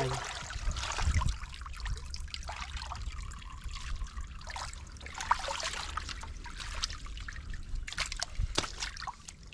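Shallow pool water sloshing, trickling and splashing irregularly as hands and arms grope under rocks in it, with a dull thump about a second in and a few sharp knocks near the end.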